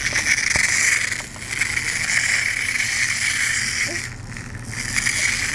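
Whirring of the spring motor in a small pull-back toy ladybug as it runs along the track of an Usborne Busy Bug book, breaking off briefly twice, with a single click about half a second in.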